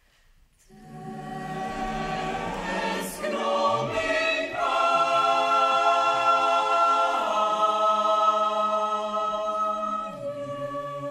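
Mixed choir singing a cappella: after a moment's silence the voices enter about a second in, swell, and hold sustained chords that change several times.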